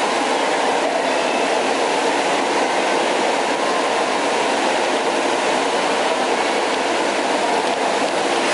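Steady rush of flowing water in an indoor water park, an even, unbroken noise.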